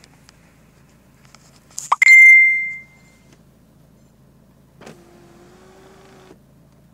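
Electric motor of a Peugeot 407 SW's panoramic roof blind, worked from the overhead console knob, running with a steady hum for about a second and a half, stopping, then starting again near the end. About two seconds in, a sharp ding rings out for about a second, louder than the motor.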